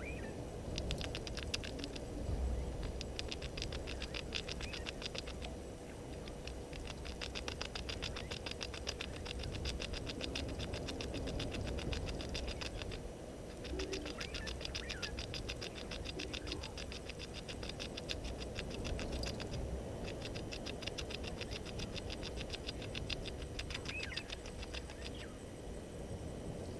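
Calling insects ticking very fast and evenly, in bouts of a few seconds broken by short pauses, over a steady low rumble, with a few faint bird chirps.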